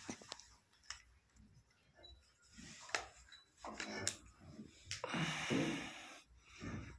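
Cattle breathing and snorting in loud breathy puffs, the biggest about five seconds in, with scattered light clicks and rustles between them.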